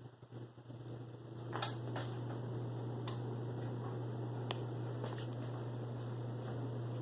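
Hampton Bay Lyndhurst 52-inch ceiling fan running with a steady low motor hum. A sharp click comes about one and a half seconds in, after which the fan runs steadily louder, with a few faint ticks.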